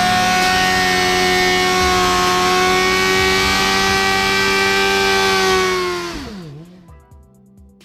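Sport bike engine held at steady high revs during a burnout, the rear tyre spinning on the pavement with a hiss. About six seconds in, the revs fall away and the sound fades out.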